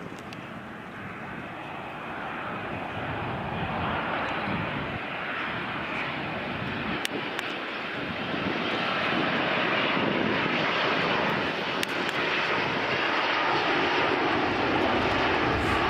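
Boeing 787-9 Dreamliner on final approach with its landing gear down, the steady noise of its jet engines growing louder as it comes nearer.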